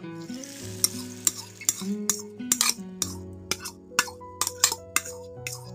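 Background music with a steady beat. For about the first two seconds, a soft hiss as beaten masala egg is poured into hot oil in a frying pan.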